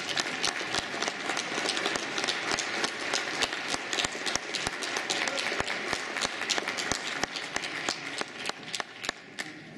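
A small audience applauding with many quick, uneven claps. The clapping thins out and dies away near the end.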